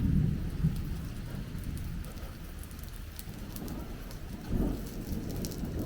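Food frying in a hot pan: faint crackles of oil over a low, steady rumble, with a louder swell about four and a half seconds in.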